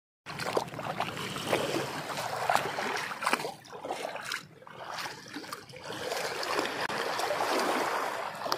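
Small waves lapping at a pebble shore, the water washing and trickling among the stones with many small clicks, swelling and ebbing.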